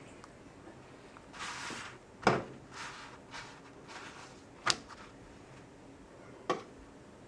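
A folded cloth rubbing and pressing a wheat paratha in a frying pan, with three sharp knocks: the loudest about two seconds in, the others near the middle and near the end.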